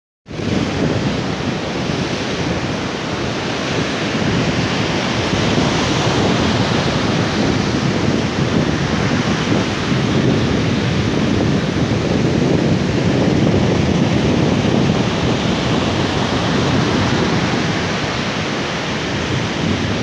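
Steady rush of sea surf, with wind buffeting the microphone.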